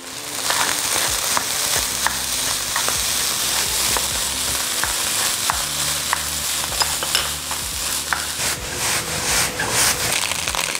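Fried rice sizzling in a hot wok over a gas flame as it is stirred and tossed, a steady frying hiss with many small clicks and scrapes of the spatula against the pan.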